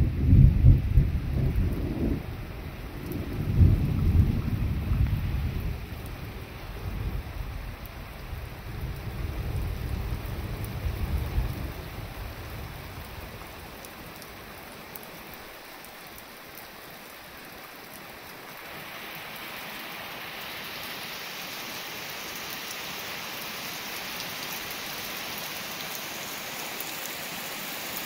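Thunder rolling over steady rain during a thunderstorm. The rumbling dies away about halfway through, and the rain hiss grows louder from about two-thirds of the way in.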